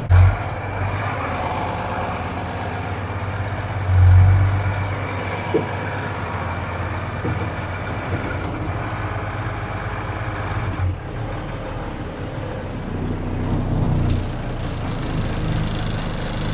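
Mercedes-Benz Unimog U2450 6x6 truck's diesel engine running steadily as the loaded truck crawls over rough off-road ground, with two heavy low surges, the louder about four seconds in.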